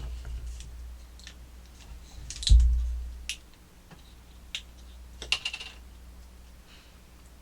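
Scattered light clicks and handling noises, with one heavy low thump about two and a half seconds in and a short cluster of clicks near the middle.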